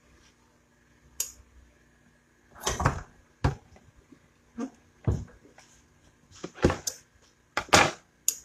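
Manual clamshell heat press being opened: a dozen or so irregular clunks and knocks from its handle and upper platen, mixed with the handling of a cotton T-shirt on the press. The loudest knocks come near the end.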